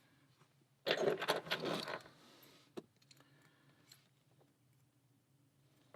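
Small metal lock parts from a disassembled Schlage six-pin lock clinking and rattling together for about a second, followed by one sharp click about three seconds in.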